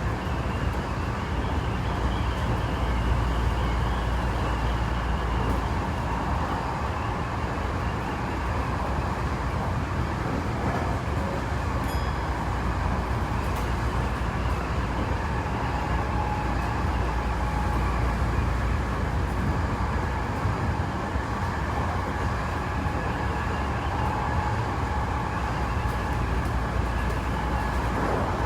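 Tokyo Metro 7000 series train running between stations, heard inside the carriage: a steady low rumble of the running train with faint even tones above it.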